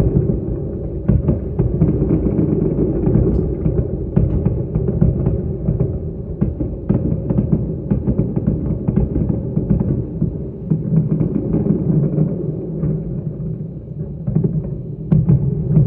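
Building implosion heard from a distance: a continuous deep rumble with scattered sharp cracks and thuds as the demolished towers come down.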